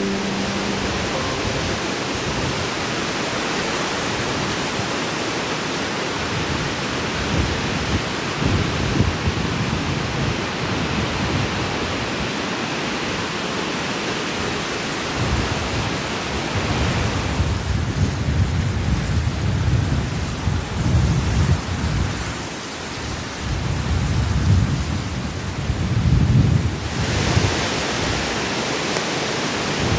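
Steady hiss of heavy rain, with low rumbles swelling and fading from about eight seconds in. The hiss changes near the end.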